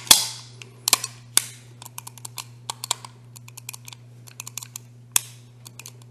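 A 10mm 1911 pistol's action being worked by hand in a function test: sharp metallic snaps of the slide and hammer, a few loud ones with a quick run of lighter clicks between them. A faint steady hum sits underneath.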